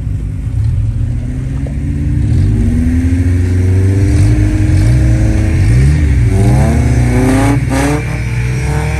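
Rock crawler's engine revving under load as it climbs over boulders. The pitch rises over the first few seconds, then blips up and down several times near the end.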